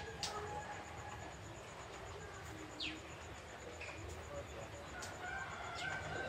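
Young sogok ontong (little spiderhunter) giving three short, sharp falling chirps a few seconds apart, with a rooster crowing in the background near the end.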